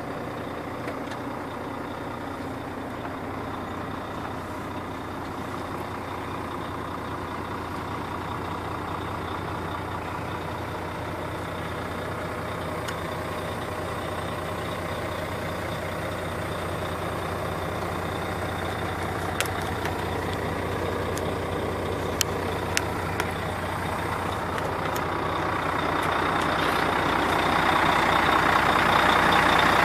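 Volvo FM12 truck's diesel engine idling steadily, heard from inside the cab, growing louder over the last few seconds. A few light clicks come about two-thirds of the way through.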